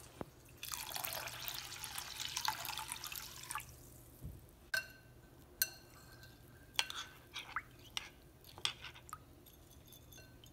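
Water poured from a jug into a glass bowl of brown rice, a rushing splash lasting about three seconds. Then a metal spoon stirs the wet rice and clinks sharply against the glass bowl about eight times, some clinks leaving a brief glassy ring.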